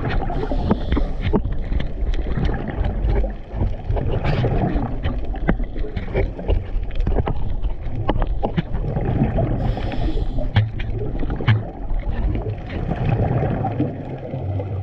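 Underwater sound of a scuba dive picked up through a camera housing: a continuous low rumble of water movement and exhaled bubbles, with many scattered sharp clicks and two short bursts of hiss, near the start and about ten seconds in.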